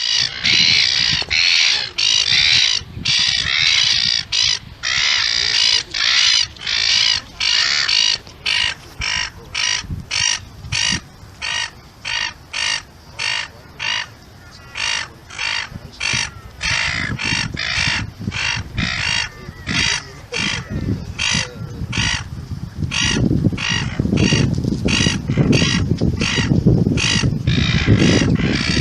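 Gulls calling: harsh squawking calls, run together for the first several seconds, then a fast series of separate calls about two a second. A low rumble builds up underneath near the end.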